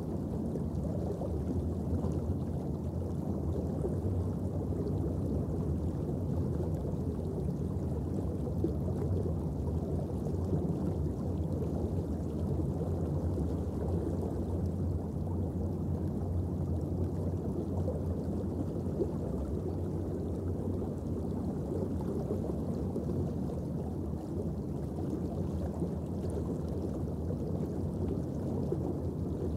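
Steady, muffled low underwater rumble with no distinct events, the ambient sound of the sea picked up by a submerged camera.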